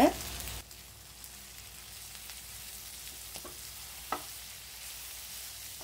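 Onions and spices frying in hot oil in a pan: a steady sizzle, with a few light taps in the second half.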